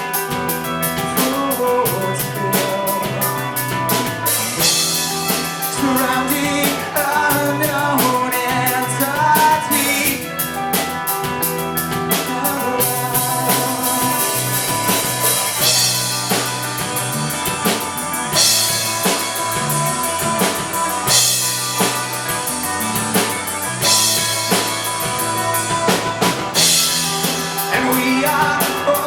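Live rock band playing, with a drum kit keeping a steady beat of bass drum and rimshots under sustained guitar and bass lines.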